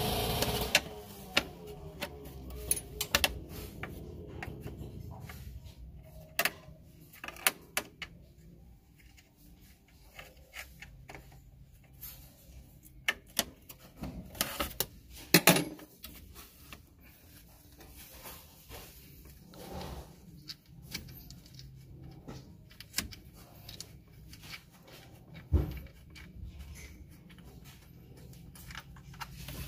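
Irregular metallic clicks, clinks and knocks of hand tools and loose parts being handled while unbolting an engine's cooling fan shroud and fan clutch, with a couple of louder knocks about halfway through and near the end.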